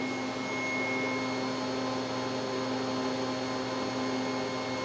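Dyna Myte 4400 CNC vertical mill humming steadily while powered, with several constant tones and no clunks or clicks, as the spindle orients for a tool change.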